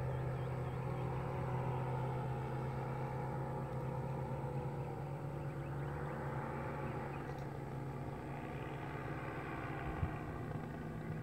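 Paramotor engine droning overhead in flight, its pitch wavering slowly as it moves, over a steady low hum. A single short tap comes near the end.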